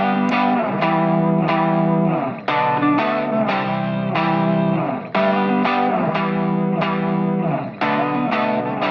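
Background music: a rhythmic, effects-laden electric guitar line with even, roughly half-second note attacks over a sustained bass note.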